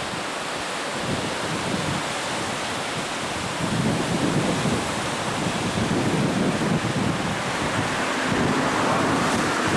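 Rushing water of a tidal race. Wind buffets the microphone in gusts throughout.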